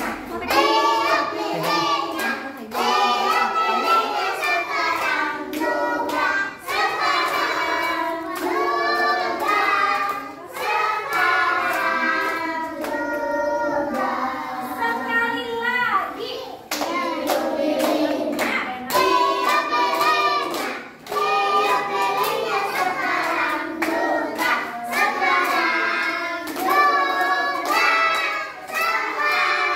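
A group of young children singing a birthday song together, clapping along as they sing.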